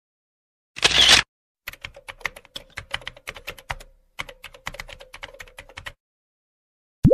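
A short burst of noise lasting about half a second, then rapid typing on a computer keyboard, a quick run of clicks for about four seconds with a brief pause midway.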